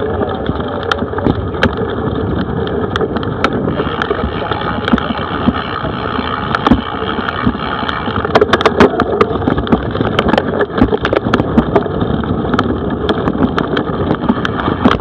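Mountain bike rolling fast over a rough grass track: a steady rumble of tyres and wind on the microphone, with frequent sharp clicks and rattles from the bike over bumps, thickest about eight to ten seconds in.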